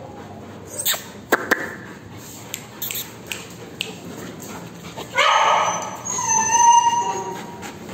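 Dog whining and yelping: a short yelp about five seconds in, then a longer high whine. A few sharp knocks come earlier.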